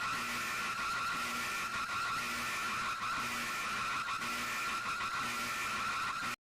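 Emergency alert broadcast audio: a steady shrill electronic tone over heavy static, which cuts off abruptly near the end.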